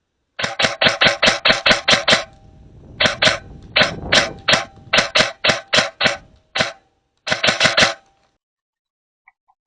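Airsoft MP5 firing strings of sharp snapping shots: about ten quick shots, a pause, a dozen more spaced a little apart, then a short string of four.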